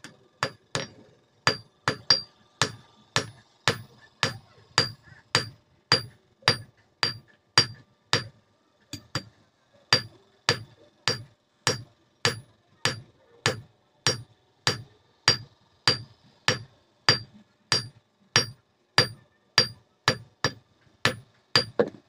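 Hand hammer forging a red-hot steel bar on a steel block anvil: steady blows about two a second, each with a short metallic ring.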